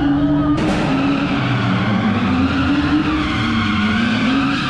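Car engine revving up and down while its rear tyres spin and squeal through a drift, with the tyre noise setting in about half a second in.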